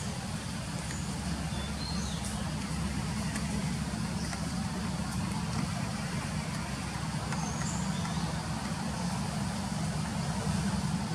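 Steady low rumble of background noise, with a few short faint high chirps scattered through it.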